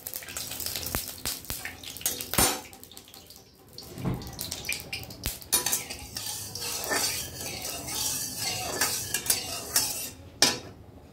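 Metal spatula scraping and clinking against a metal kadai while spreading oil around the pan, with a sharp clank about two and a half seconds in and another near the end.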